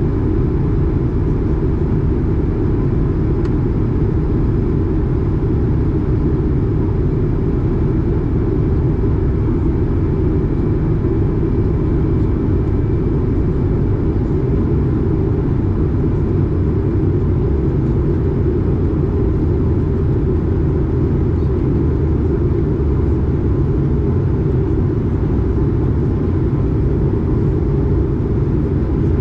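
Airbus A220 cabin noise in flight: an even, unbroken low rumble of airflow and its Pratt & Whitney PW1500G geared turbofan engines, with a faint steady whine above it.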